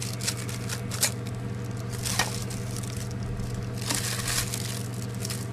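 Paper packaging around the mess kit being handled and cut open: crinkling and rustling with several sharp clicks, over a steady low hum.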